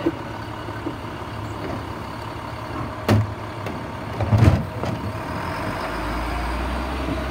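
Automated side-loading garbage truck running while its hydraulic arm handles a green compost cart, with two loud knocks about three and four and a half seconds in as the cart is handled and set down. Near the end a deep low engine drone sets in.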